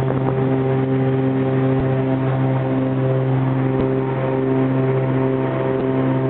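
Twin piston engines and propellers of a Cessna 402 droning steadily, heard from inside the cockpit as the plane climbs out after takeoff. A slow pulsing beat runs through the drone.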